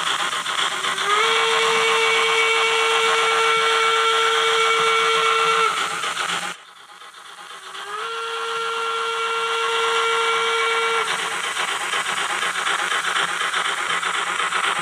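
Sound decoder of a Fleischmann BR 86 H0 model steam tank locomotive sounding two long steam-whistle blasts over its steady running noise. Each blast slides briefly up in pitch and then holds: the first lasts about four and a half seconds, the second about three. The decoder volume is set too high, so the sound comes out distorted.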